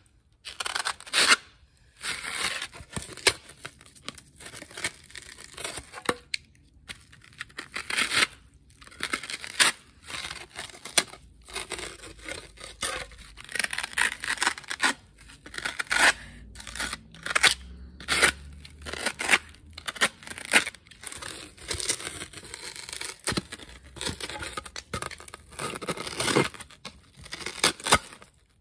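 Foam board being cut: a run of irregular cutting strokes with short pauses between them.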